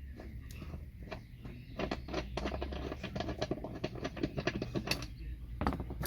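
Ratchet wrench clicking rapidly and unevenly as it backs out a bolt through the car's floor carpet, with a few separate knocks before and after the run of clicks.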